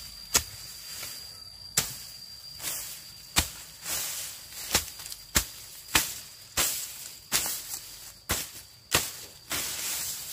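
Repeated sharp strikes, roughly one a second and somewhat irregular, some followed by a brief rustling hiss, over a steady high-pitched whine.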